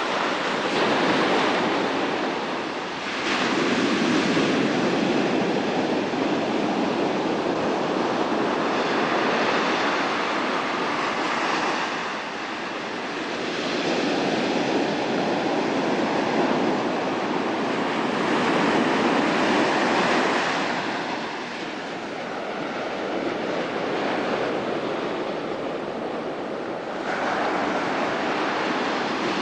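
Ocean surf washing onto a beach: a steady rushing of breaking waves that swells and eases every several seconds.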